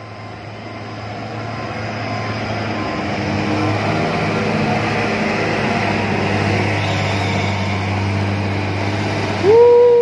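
Coach's diesel engine labouring under load as the bus climbs a steep hairpin, growing steadily louder; the strain is what the speaker calls the bus "crying". Near the end a short, loud horn blast slides up in pitch and then holds one note.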